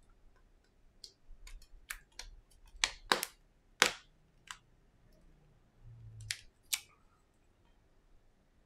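Handling sounds of an iPhone XS: a string of sharp clicks and taps as the phone is turned over and a Lightning charging cable is plugged in, loudest about three to four seconds in, with two more clicks near the end and a brief low hum just before them.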